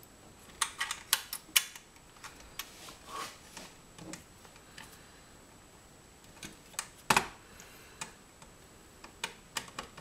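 Scattered sharp plastic and metal clicks and taps as DIN-rail end stops are fitted onto a steel rail beside modular devices to stop them sliding. The clicks come in a quick cluster at the start, a few more spread out, and the loudest single click about seven seconds in.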